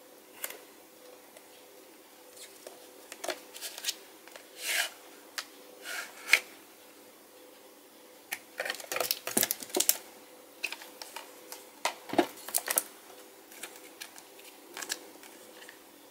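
Hands handling Blu-ray packaging: the plastic Blu-ray case and its cardboard slipcase clicking, tapping and rustling in scattered bursts, busiest around the middle and again about three-quarters through. A faint steady hum sits underneath.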